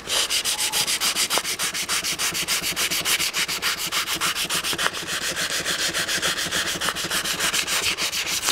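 400-grit sandpaper rubbed by hand lengthwise along a wooden pool cue shaft in quick, even back-and-forth strokes, several a second, then stopping abruptly. The strokes are taking down the shaft's high side until it sits flush with the new ferrule.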